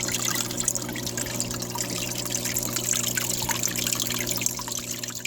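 Small aquarium waterfall trickling and splashing steadily off a rock ledge into the tank water, its tone set by how the rock is angled. A steady low hum runs beneath it.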